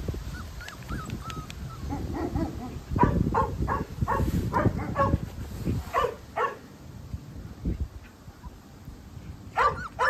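Puppies yipping and barking in short, high yelps: a rapid run of about half a dozen yips around three to five seconds in, two more about six seconds in, and another pair near the end.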